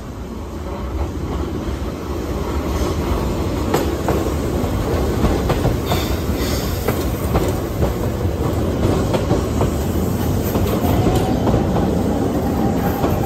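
A Keihan 800 series train runs into the station, growing louder as it nears and passes, its wheels clacking over rail joints and points. A little wheel squeal comes in a few seconds in, and a steady tone enters near the end.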